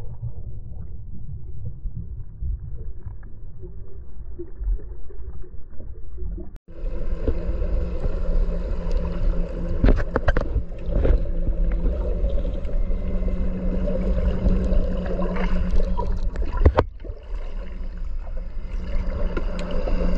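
Muffled low rumble for about the first six seconds, then, after a sudden cut, a boat's engine running steadily with a low hum, a few sharp knocks and a second brief break near the end.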